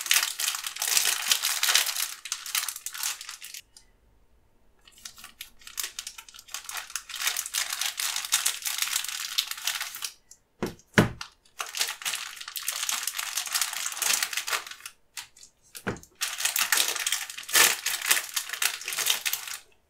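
Thin clear plastic wrapper crinkling and crackling in bursts as gloved hands open it and pull out sticks of modelling clay. Two sharp knocks come about halfway through.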